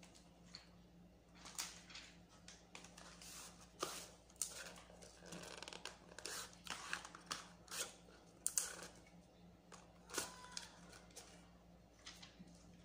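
Packaging being handled: irregular crinkling and rustling of paper and plastic, with small taps and clicks as box parts and accessories are picked up and set down on the table. A faint steady hum runs underneath.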